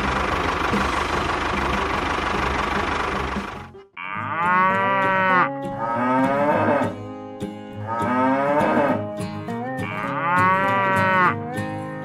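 A tractor engine sound runs and cuts off abruptly about four seconds in. Cattle then moo several times, each moo long and bending in pitch.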